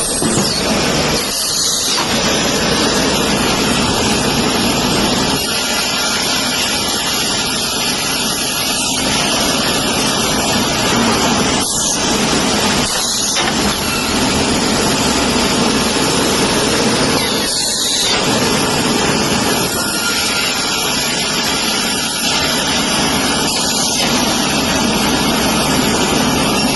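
Woodworking machinery running steadily, a loud, dense mechanical noise with a few brief dips.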